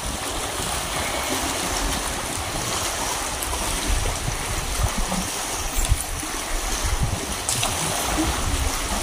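Steady rush of sea water lapping around a boat, with a few faint knocks.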